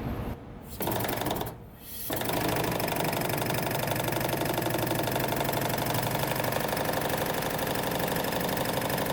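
A machine running steadily with a fast, even knocking rhythm, starting about two seconds in.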